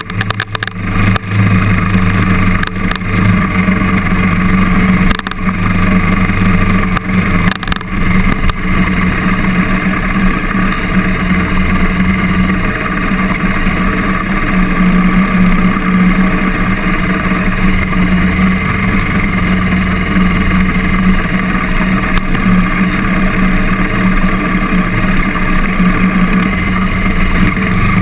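KTM trail bike engine running under load as it is ridden along a dirt track, heard close from the bike, a steady drone with brief dips about five and eight seconds in.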